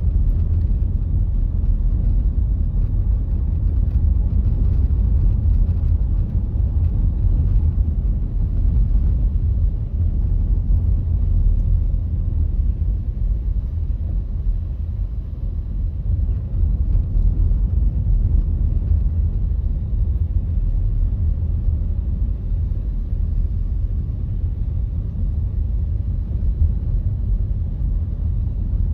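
Car driving slowly on a snowy road: a steady low rumble of engine and tyre noise.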